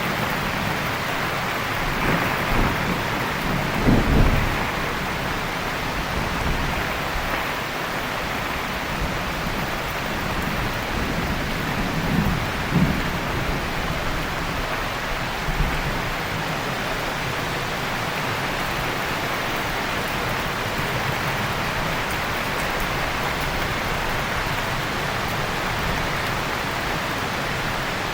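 Heavy rain falling steadily, with a few low rumbles of thunder in the first half, the loudest about four seconds in and again around twelve to thirteen seconds; the rest is steady rain.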